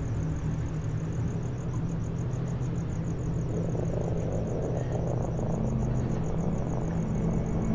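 Deep, steady rumbling drone under held low tones of ominous horror-film music, with a fast, even high-pitched pulsing of about five a second.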